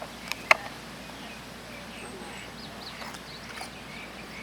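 Open-air ambience with small birds chirping faintly in the background, and two sharp clicks about half a second in.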